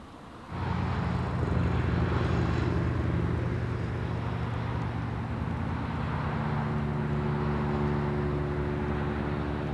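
Car driving along a road: a steady engine hum with tyre and road noise. It starts abruptly about half a second in, and the engine note shifts slightly partway through.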